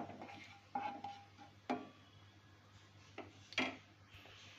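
About five sharp, scattered ticks and taps as cumin and carom seeds fry in hot mustard oil in a nonstick kadai and are stirred with a wooden spatula.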